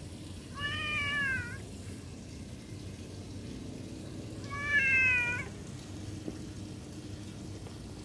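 Domestic cat meowing twice, each meow about a second long and dipping slightly in pitch at the end; the second meow, about four seconds after the first, is louder.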